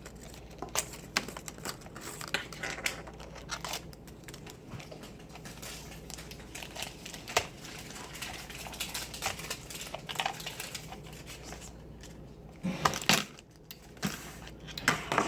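Plastic doll packaging crinkling and rustling as it is handled and opened, with scattered small clicks and snaps and a louder burst of crinkling about thirteen seconds in.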